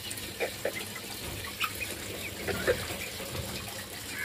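Hens pecking black soldier fly larvae out of a plastic bucket held against the cage: scattered short taps and soft clucks over a steady background hiss.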